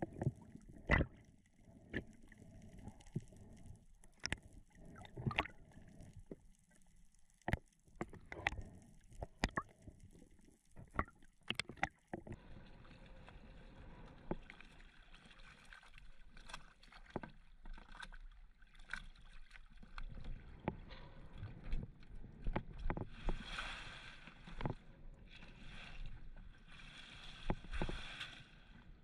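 Water noise heard through a camera's waterproof housing: scattered sharp clicks and knocks for about the first twelve seconds, then a steady rushing hiss with two louder swells near the end.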